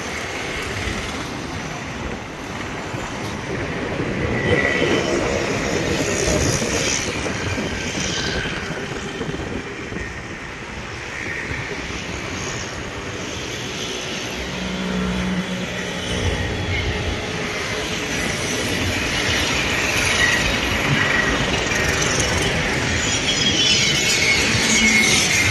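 Outdoor road traffic noise, a steady rumble of passing vehicles that swells and falls, with a few brief higher tones like distant horns.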